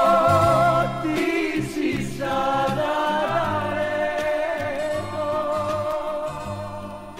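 Closing bars of a 1970s pop ballad recording: held, wavering notes over a bass line, with no lyrics. The music fades away over the last couple of seconds.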